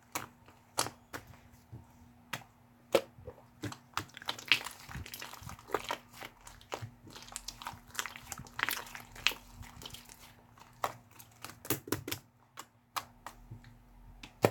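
Slime being pressed and worked by hand, giving many sharp clicks and pops from trapped air, with two stretches of denser, softer noise between them.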